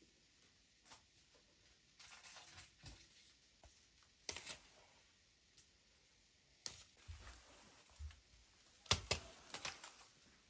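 Quiet, scattered clicks, taps and rustles of hands at work as baked potatoes are lifted out of a tandoor pit oven and set into plastic baskets. A cluster of sharper clicks comes near the end.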